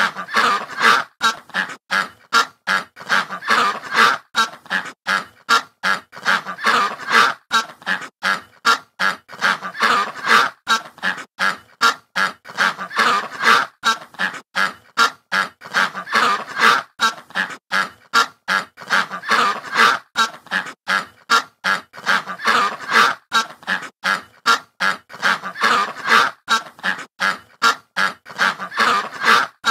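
A flock of white domestic geese honking, short calls repeating several times a second without a break.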